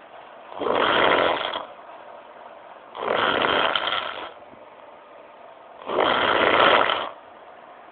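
A person snoring in sleep: three snores, each about a second long, roughly three seconds apart.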